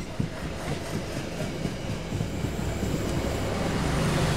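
Passenger coaches of the KA Jakatingkir train rolling slowly past close by, with wheels clacking irregularly over the rail joints in the first couple of seconds. A steady low hum then grows louder near the end.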